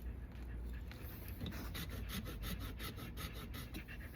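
Cut end of a PVC pipe being reamed with a deburring tool: quick, repeated scraping strokes, several a second, shaving the burr off the cut edge.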